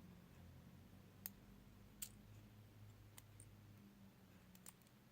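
A few faint, sharp clicks of small metal parts, about five spread over the stretch: tweezers picking pins out of a Kwikset lock cylinder's pin chambers.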